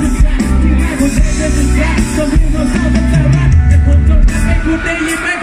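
Live band playing loud through the stage PA: heavy bass and drums, keyboard and electric guitar, with a male vocalist singing into a handheld microphone.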